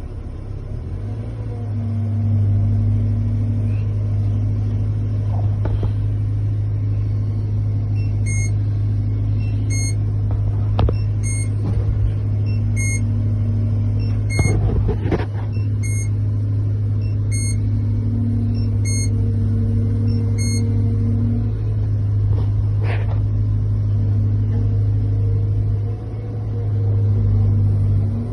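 Caterpillar 320 hydraulic excavator's diesel engine running steadily, with a few short clunks from the digging. In the middle, an electronic beep repeats about every second and a half for roughly twelve seconds.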